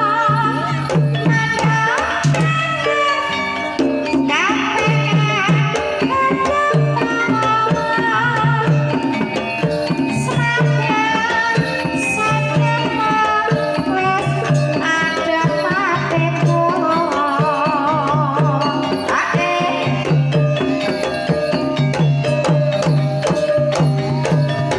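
Banyumasan tayub gamelan music: regular hand-drum strokes under steady ringing gamelan tones, with wavering melodic lines from the sinden's voice or an instrument.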